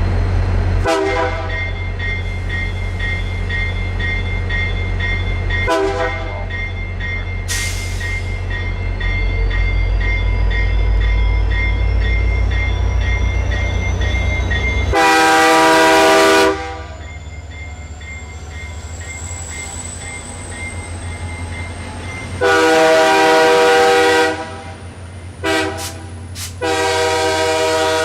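VIA Rail F40PH diesel locomotive 6444 pulling away, its two-stroke EMD prime mover running with a loud low drone that fades after about fifteen seconds as it moves off. Its chime horn gives two brief toots early on. It then sounds the long, long, short, long grade-crossing signal.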